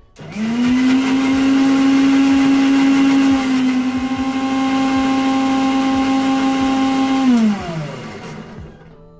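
Electric countertop blender with a stainless steel jug running at full speed. The motor spins up quickly to a steady whine, wavers slightly as the load shifts about three seconds in, then is switched off about seven seconds in and winds down with falling pitch.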